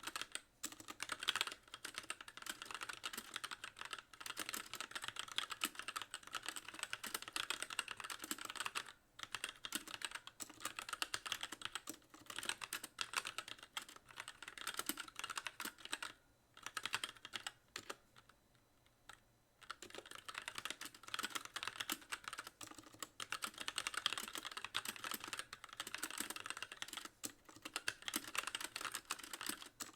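Fast, continuous typing on a Magicforce mechanical keyboard with light linear Gateron Clear switches and stock keycaps, the keys bottoming out on nearly every press. The typing stops for about two seconds a little past the middle, then carries on.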